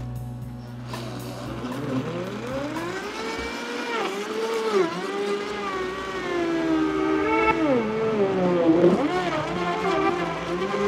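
High-powered blender motor puréeing melon chunks. It starts as a low steady hum, then about two seconds in its pitch climbs and keeps wavering up and down as the tamper pushes the fruit into the blades.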